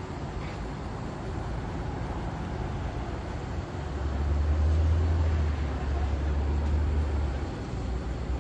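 City street traffic noise, with a deep vehicle rumble that swells about four seconds in and eases off about three and a half seconds later.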